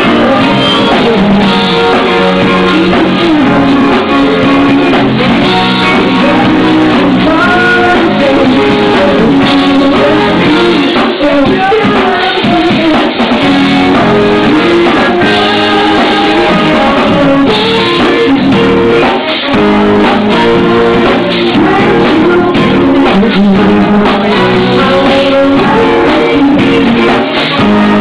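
Loud rock music: a voice singing over guitar and a full band.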